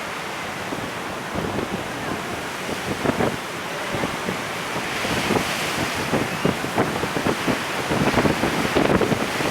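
Typhoon-force wind buffeting the microphone in uneven gusts, with a louder hiss building from about halfway through.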